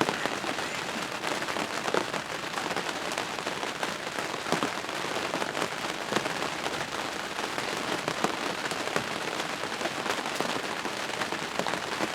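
Steady rain with many individual drops pattering and ticking on a surface.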